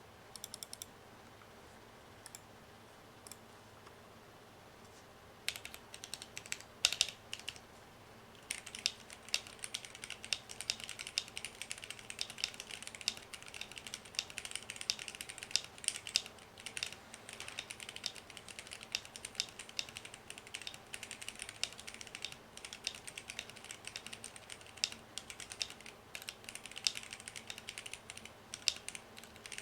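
Typing on a Womier K66 mechanical keyboard in an acrylic case, its stabilizers tuned with cloth tape and lubed. A few scattered keystrokes at first, then steady fast typing from about eight seconds in.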